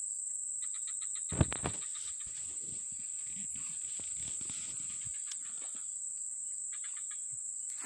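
Steady high-pitched drone of insects such as crickets or cicadas. A single sharp knock comes about one and a half seconds in, followed by a few seconds of low rustling.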